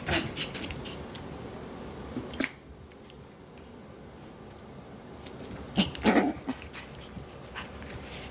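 Seven-week-old Coton de Tulear puppies play-fighting, giving a few short yips and yaps, the loudest a cluster about six seconds in.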